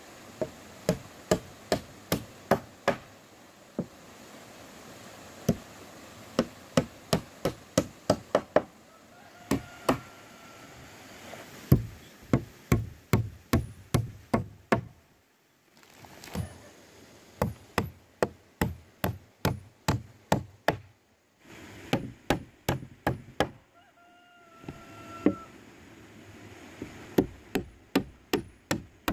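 Hammer driving nails into old wooden planks: runs of sharp strikes, two or three a second, with short breaks between the runs.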